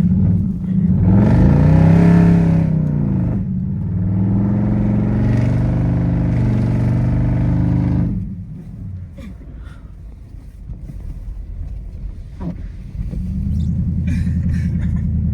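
Car engine revving in the snow: it rises and falls once, holds a steady high pitch, drops back to a low idle about eight seconds in, then picks up again to a steady pitch near the end.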